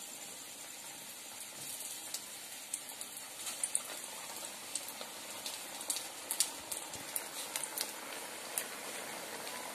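Cabbage vadas deep-frying in hot oil in a kadai: a steady sizzle with frequent sharp crackles and pops.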